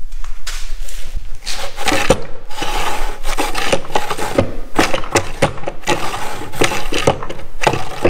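Plywood scraping and knocking over and over: the wooden parts of a home-built plywood dolly are being handled and rubbed against each other.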